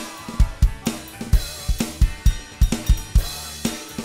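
Electronic drum kit played in a steady rock beat: regular bass-drum and snare strikes with cymbal and hi-hat, over a rock backing track with a singing voice.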